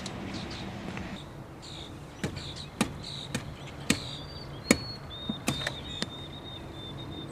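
A series of sharp, irregular knocks and taps, about ten in a few seconds: a car jack being handled and fitted into the lip under the vehicle.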